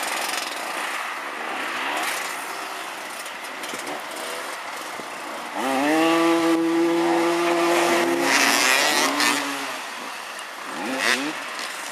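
Several motoball dirt-bike engines revving on the pitch. About six seconds in, one engine revs up and holds a steady high pitch for about two seconds, then drops lower before fading. More short revs follow near the end.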